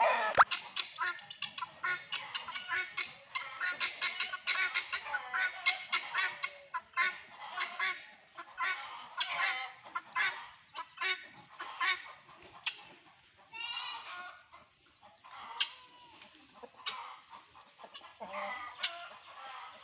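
Guineafowl calling: a rapid run of short, harsh calls, packed close together for the first dozen seconds and then more spaced out, with one longer call about fourteen seconds in. A single sharp knock sounds just after the start.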